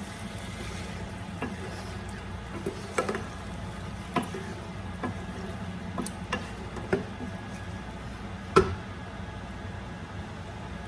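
Chicken and frozen vegetables frying in a pan, a spatula stirring and knocking against the pan about once a second, with one sharper knock near the end, over a steady low hum.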